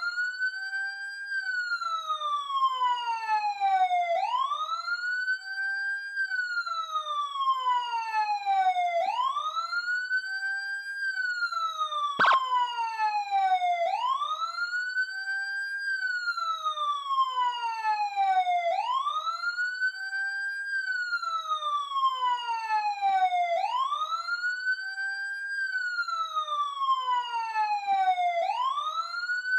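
Police siren in wail mode: a quick rise in pitch followed by a slower fall, repeating about every five seconds. A single sharp click about twelve seconds in.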